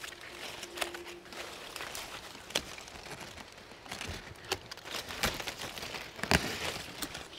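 Hand pruning shears snipping guava branches, several sharp clicks a second or two apart with the loudest near the end, among rustling leaves and twigs.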